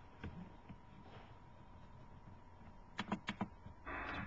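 Quiet room tone, then about three seconds in a quick run of four sharp clicks on a computer keyboard, followed by a short rush of noise near the end.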